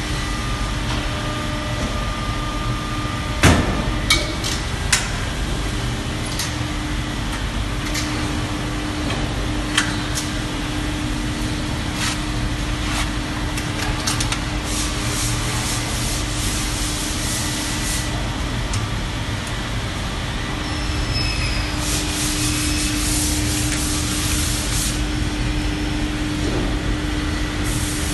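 Steady machine hum in a woodworking workshop, with scattered knocks and clicks as a laminate sheet and the hinged frame of a vacuum membrane press are handled; a sharp knock a few seconds in is the loudest. Two spells of hissing come in the second half.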